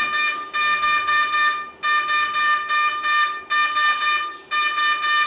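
A loud electronic alarm tone at one steady pitch, sounding in pulsing stretches of about a second with short breaks between them.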